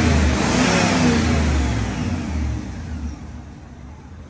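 Car engine revving, its pitch rising and falling, then dropping back toward idle about halfway through, with a whine that falls away with the revs. The noise is put down to a newly fitted drive belt that is too tight, though a pulley could be to blame.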